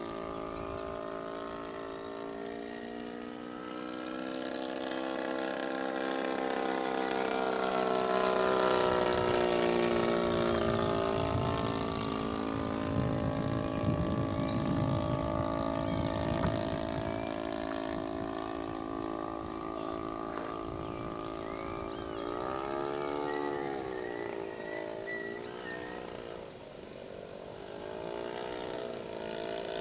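Small propeller airplane's engine droning as it flies overhead, rising and falling in pitch and loudness as it manoeuvres, with quick swoops in pitch in the last seconds.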